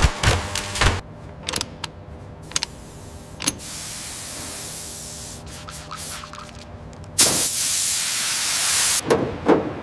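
A few mechanical whirs and clicks from robotic tool spindles at an axle. Then a spraying hiss of hydraulic fluid escaping from a hose fitting, loudest for about two seconds near the end.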